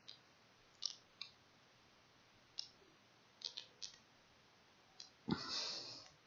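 Computer mouse clicking: about seven short, faint clicks scattered through the first four seconds, some in quick pairs. About five seconds in comes a louder rush of noise lasting about a second.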